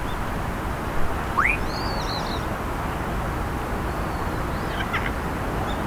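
Steady outdoor background noise of open air, with a few faint, brief bird chirps over it.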